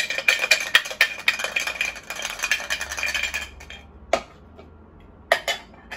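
Metal Funko Soda cans rattling and clinking as they are handled: a fast rattle for about three and a half seconds, then a sharp click about four seconds in and two more knocks near the end.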